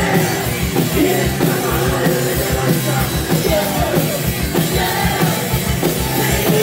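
Rock band playing loudly: a fast, steady kick-drum beat, bass guitar and a singer's voice over the top.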